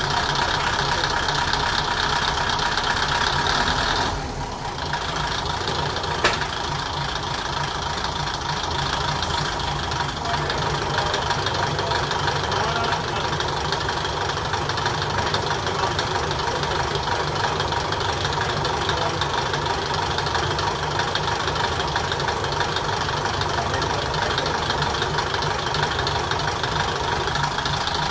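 Kokuchi KiHa 200 railcar's DMH17C straight-eight 17-litre diesel engine idling steadily, heard from inside the car through an open floor hatch. The level dips briefly about four seconds in, and a single sharp click comes about six seconds in.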